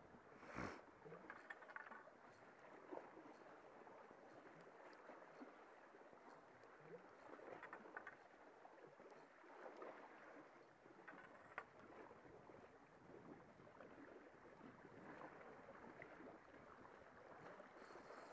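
Near silence: faint lapping of sea water, with a few faint knocks and ticks, the clearest about half a second in.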